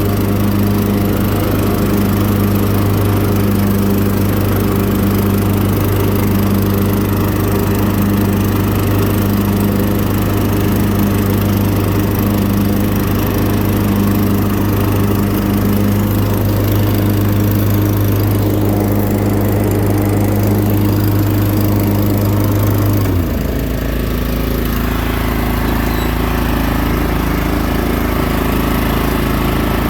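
2013 Huskee riding lawnmower engine running steadily and strong. About three-quarters of the way through, the engine speed drops and it settles into a steady, lower-pitched run.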